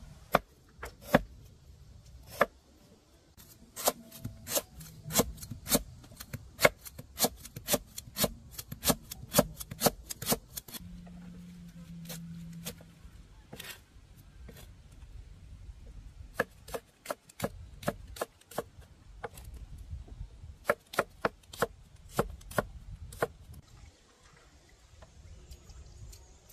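Knife chopping on a cutting board: runs of sharp, irregular strokes, about two a second, with a short pause in the middle.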